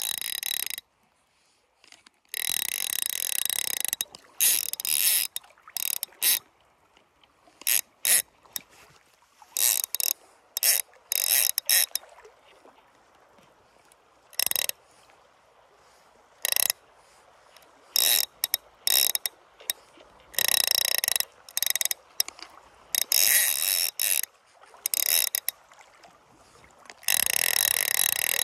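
Fly reel's click-and-pawl ratchet buzzing in irregular bursts, some short, some over a second long.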